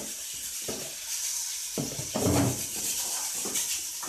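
Pieces of raw pork leg tipped into a saucepan of hot olive oil and seasoning, starting to sizzle, with the hiss growing from about a second in. Scrapes and knocks of the meat and utensil against the pan come through it.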